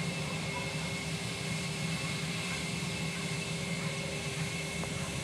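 Jet airliner engines running steadily, a constant whine over a low rumble.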